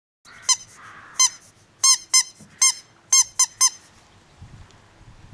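Dog's squeaky toy squeezed about eight times in quick, uneven bursts: short, high-pitched squeaks, some in pairs and a run of three.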